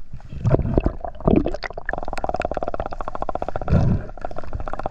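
Underwater sound at a diver's camera: a few dull knocks in the first second and a half, then a fast, even, buzzing gurgle that carries on to the end, with one heavier low thump near the end.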